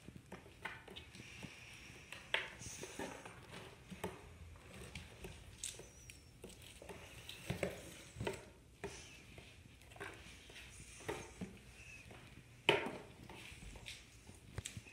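Small animal moving about on bedding in a plastic enclosure: scattered soft taps, scratches and scrabbling, the loudest a sharp knock about thirteen seconds in, with a brief high chirp about six seconds in.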